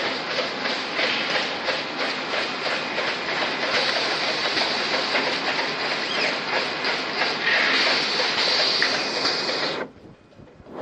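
Automatic plastic cup packaging machine running: a steady, dense mechanical clatter of many rapid clicks with a hiss, cutting off suddenly near the end.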